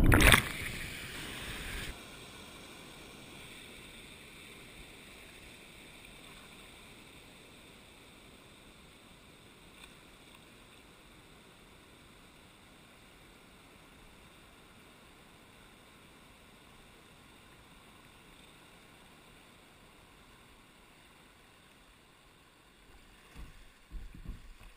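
Creek water splashing loudly over the camera for about the first two seconds, then a steady faint rush of flowing creek water over a riffle, with a few low thumps near the end.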